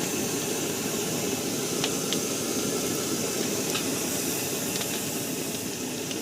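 Onions, ginger, garlic and chilli frying in hot mustard oil in a kadai, sizzling steadily with freshly added ground spices, with a few faint ticks.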